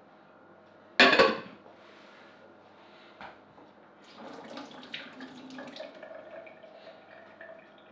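A sudden sharp clatter of kitchenware about a second in. From about four seconds comes a few seconds of splashing, running water and dish handling.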